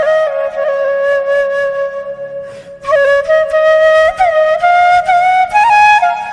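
Background music: a solo flute playing a melody with sliding ornaments, pausing briefly about halfway through.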